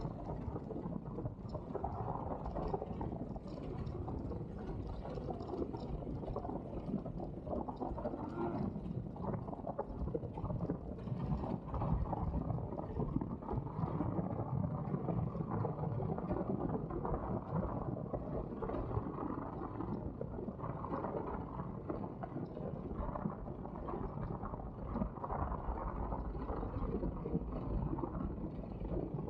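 Polini Thor 130 single-cylinder two-stroke paramotor engine running steadily in flight, heard as a low rumble mixed with wind buffeting the microphone.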